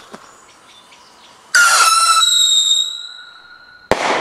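Leslie Headbanger whistling bang rocket taking off: about a second and a half in, a loud, shrill steady whistle starts and fades as the rocket climbs, then the report charge goes off in a single sharp bang near the end.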